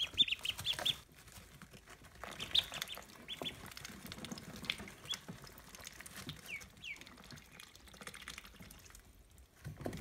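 Pekin ducklings peeping: a quick string of high peeps in the first second, then scattered single peeps over soft rustling of the wood-shaving bedding.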